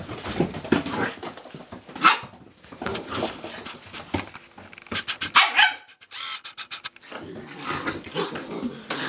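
Magyar agar (Hungarian greyhound) puppies play-fighting: high-pitched barks and yelps, sharpest about two and five seconds in, over scuffling on a wooden floor.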